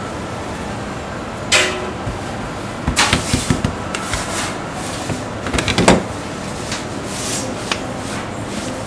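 Wooden rolling pin rolling out pizza dough on a stainless-steel counter, with scattered knocks and clatters of the pin against the steel, in small clusters, over steady background noise.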